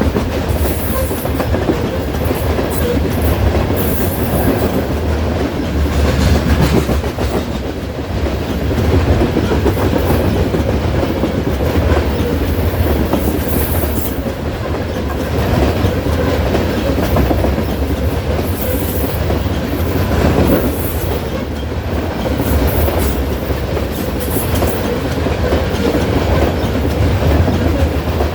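Loud, steady passing of a train's cars rolling by at close range: a deep rumble of the wheels with a clickety-clack over the rail joints. Short high-pitched bursts come every few seconds.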